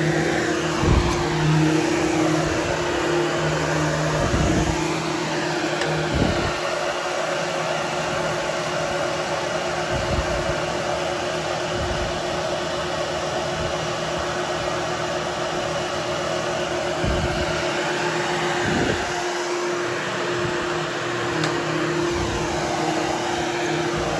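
Hoover HushTone vacuum cleaner running steadily as it is pushed back and forth over berber carpet. Its pitch rises and falls slightly with each stroke, with occasional low bumps.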